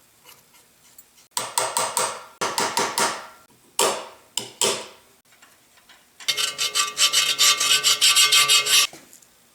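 A hand tool rasping on metal in repeated strokes: a few separate strokes at first, then a faster, louder run of about five strokes a second for a couple of seconds near the end.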